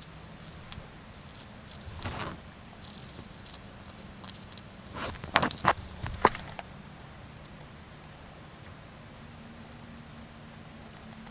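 Scissors snipping through knit fabric along a paper pattern, with faint rustling of the cloth being handled. A few sharper clicks of the scissors come about halfway through.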